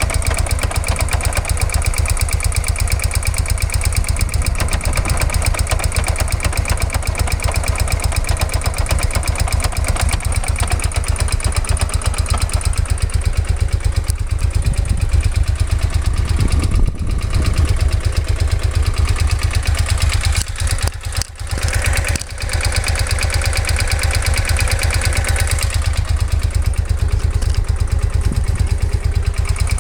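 Suzuki VX 800 V-twin running on its centre stand in first gear, its shaft drive clattering heavily in a rapid, even rhythm; the level dips briefly about two-thirds of the way in. The owner asks whether the clatter comes from too much play or from damage or wear in the drive-shaft joint.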